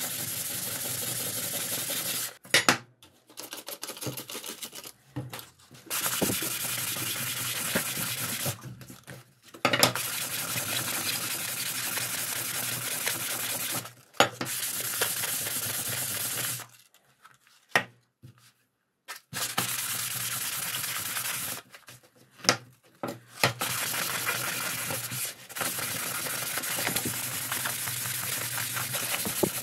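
Hand sanding a rusty steel machete blade with sandpaper on a block, a steady scratchy scraping that cleans off the rust. It cuts out abruptly several times, with a few sharp knocks in between.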